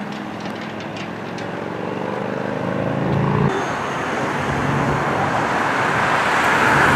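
Road traffic of motorcycles passing. A steady engine hum fills the first half. After an abrupt change about halfway, an approaching machine grows louder and is loudest near the end.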